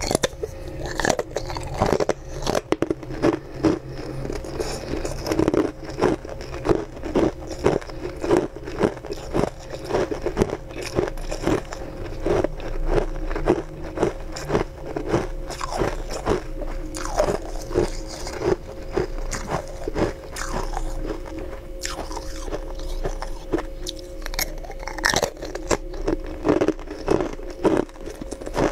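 Pieces of frozen sweet ice bitten and crunched between the teeth: a close, dense run of sharp cracks and crunches, several a second, with a steady faint musical tone underneath.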